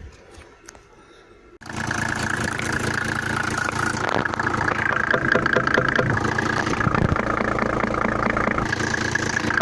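Mercedes OM603 3.0 inline-six diesel idling steadily with its diesel clatter. The injector on cylinder 5 knocks, which the mechanic puts down to a sticking nozzle. The engine sound cuts in abruptly about a second and a half in, after a quiet start.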